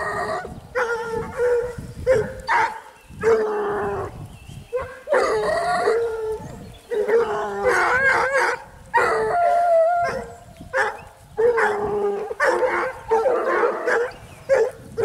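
A pack of hare hounds giving tongue as they work a hare's scent: several voices bay and howl in overlapping cries, a new one every half second or so.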